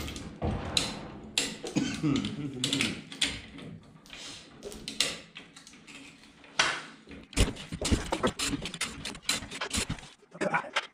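Hoist chains rattling and clinking, with irregular metallic clicks and knocks, as an engine hanging from chains is shifted by hand.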